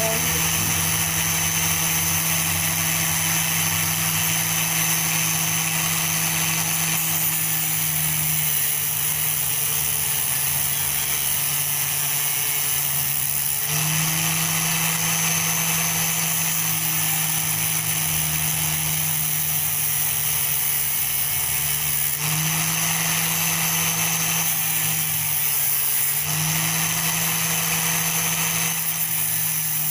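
Angle grinder rigged as a makeshift chop saw, running steadily with a cut-off wheel cutting through a thin metal spray can. Its whine sags in pitch several times as the wheel bites into the can and rises again as the load comes off.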